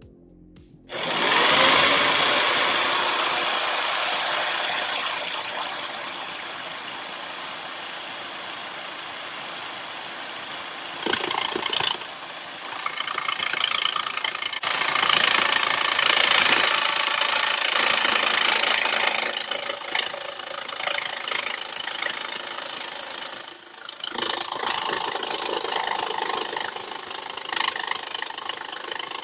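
Jigsaw with a metal-cutting blade sawing through thin sheet metal. The saw starts suddenly about a second in and runs on, rising and falling in level as the blade works through the metal, with a brief drop late in the cut.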